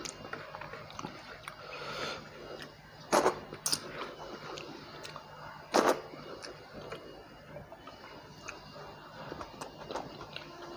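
Close-miked eating sounds from a person eating fried fish and rice by hand: chewing with many small mouth clicks, and two sharp, louder clacks about three and six seconds in.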